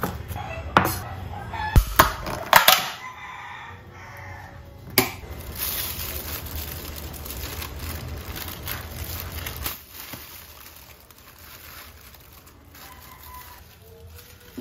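A few sharp knocks of a kitchen knife chopping on a bamboo cutting board, with a rooster crowing in the background about two to three seconds in. Later comes a steady hiss lasting several seconds, then it quietens.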